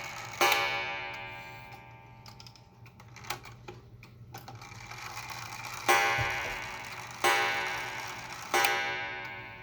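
An antique Japanese regulator wall clock's hammer strikes its deep coil gong four times, the strike released by hand on the count-wheel striking train. Each blow rings with many overtones and slowly dies away. One strike comes about half a second in, and three more come about a second and a half apart near the end, with the movement ticking in between.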